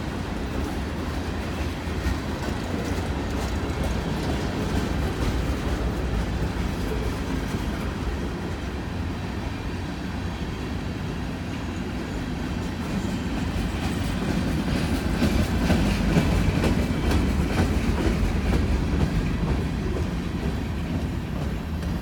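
Long manifest freight train's cars rolling past, steel wheels clicking over rail joints over a steady rumble that grows louder about two-thirds of the way through.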